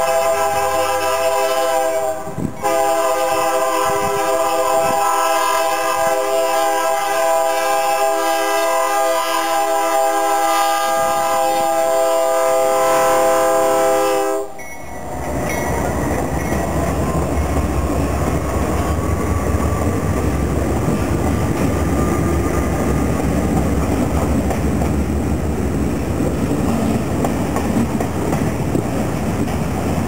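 Freight locomotive's multi-chime air horn blowing, a short break about two seconds in and then one long blast that stops about halfway through. Then the Ferromex diesel locomotives and covered hopper cars roll past close by with a steady rumble of engines and wheels on the rails.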